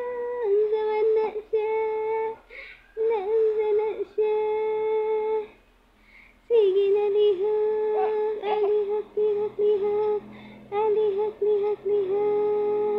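A high voice held on long, steady notes with slight wavers, broken by short pauses and a longer one near the middle, like humming or drawn-out vocalising.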